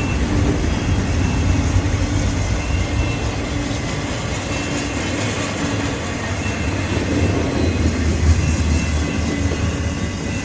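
Freight train rolling past close by: a steady, loud rumble of wheels on the rails, with faint high whines coming and going.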